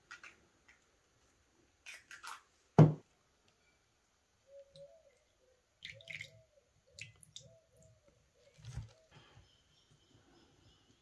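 A metal spoon clinks and taps in a small ceramic bowl, with one loud knock about three seconds in. Milk is then poured from a small porcelain jug into the bowl with a faint wavering trickle, followed by more spoon taps as the egg and milk are stirred.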